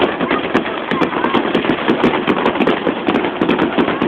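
Aerial fireworks crackling: a dense, unbroken run of rapid sharp pops.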